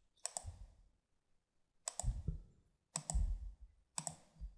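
Computer mouse button clicking four times, each click a quick press-and-release pair with a dull knock beneath, as line points are placed in a CAD drawing.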